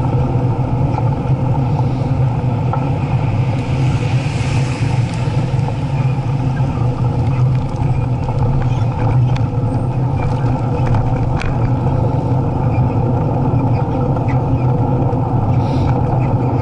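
Steady riding noise from a camera on a moving bicycle: a constant low rumble and hum with street traffic.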